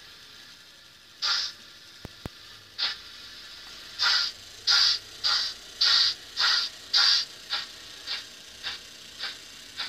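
Steam-locomotive exhaust chuffs from the DCC sound decoder in a Dapol N gauge Britannia-class model: a few slow beats, then a regular beat about twice a second that quickens slightly and turns softer after about seven seconds, as the engine gets under way. Two sharp clicks about two seconds in.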